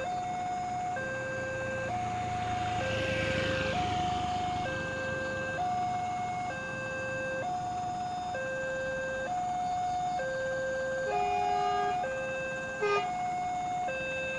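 Railway level-crossing warning signal sounding without a break, alternating between a higher and a lower electronic note, each held about a second. It warns that a train is approaching and the barriers are down. A motor vehicle passes close during the first few seconds.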